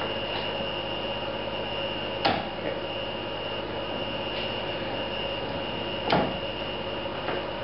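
Two sharp clicks about four seconds apart, from a locking face clamp being snapped shut and released on a wooden stud. Under them runs a steady workshop hum with a thin high whine.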